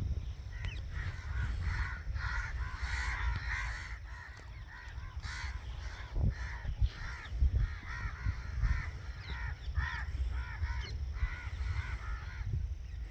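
Crows cawing over and over in runs of calls, with a steady low rumble beneath.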